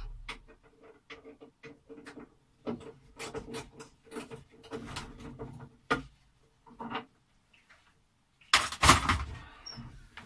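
Scattered knocks, clicks and rattles of things being handled inside a wooden closet, with a louder wooden clatter near the end as the closet door and panels are moved.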